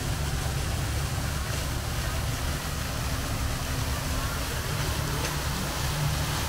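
Steady low rumble of vehicle engines running, with a faint even hiss above it and a faint murmur of voices.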